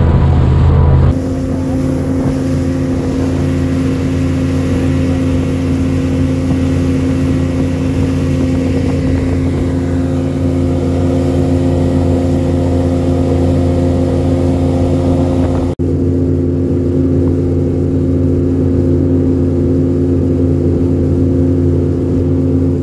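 Boat's outboard motor running at a steady speed under way, with rushing wind and water over it. The engine note changes abruptly about a second in and drops out for an instant later on.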